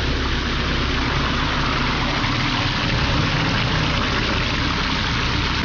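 Diesel engine of a concrete truck running steadily, with a constant hiss over a low engine hum.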